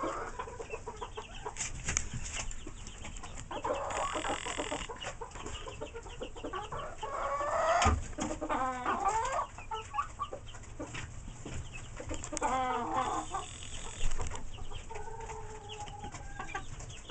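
A flock of chickens clucking and calling at close range, one call after another with some overlapping.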